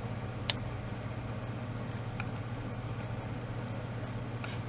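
Steady low hum, with a light click about half a second in and a fainter click about two seconds in.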